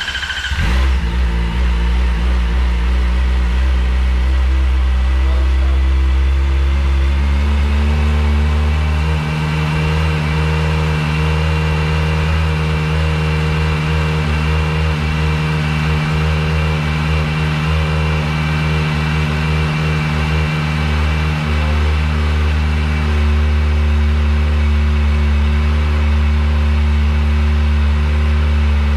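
Kawasaki Ninja ZX-4RR's 399 cc inline-four engine, just started, idling steadily through its stock exhaust; the note shifts slightly about eight seconds in.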